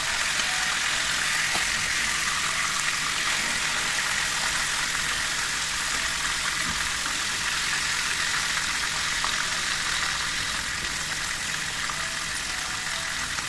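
Chicken pieces frying in hot oil: a steady sizzle.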